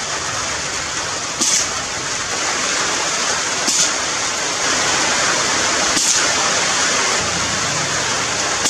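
Heavy rain falling steadily, a dense even hiss, with three brief sharper sounds about two seconds apart.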